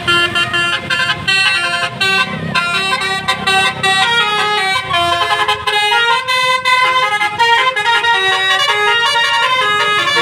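Indonesian bus "telolet" multi-tone horn playing a fast tune, a loud string of horn notes jumping in pitch several times a second with no break.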